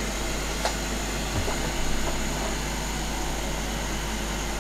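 Steady whirring hiss of a fan or air blower, with a faint click under a second in.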